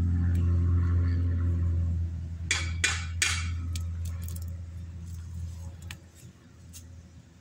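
A steady low mechanical hum, like a motor running, that fades away over several seconds, with a few sharp metallic clinks about two and a half to three and a half seconds in.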